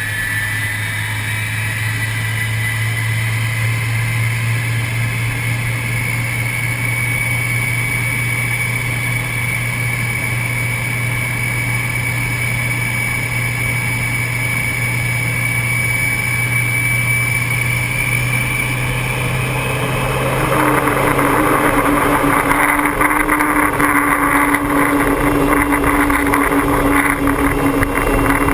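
Four Rolls-Royce Olympus turbojet engines of an Avro Vulcan heard from inside the aircraft, running with a steady low drone and a high whine slowly rising in pitch. About two-thirds of the way through the engines step up sharply to a much louder, fuller roar as power is applied for take-off.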